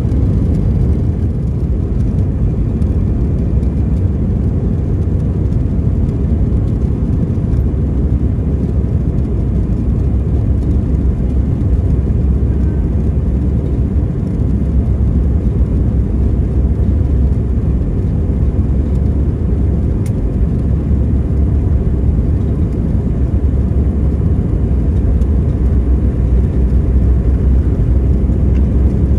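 Steady low rumble of an Airbus A319 airliner heard from inside the passenger cabin, unchanging throughout.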